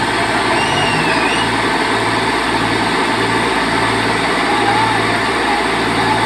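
Diesel engines of an Eicher 548 and a John Deere tractor running hard under load, pulling against each other in a tug of war. The engine noise is loud and steady, with a low throb pulsing about twice a second.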